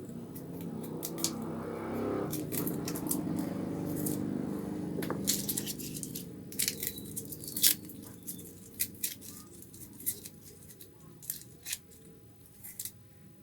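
Garlic cloves being peeled by hand: the dry papery skins crackle and snap in quick, irregular clicks. A low hum runs underneath for the first half and fades away around the middle.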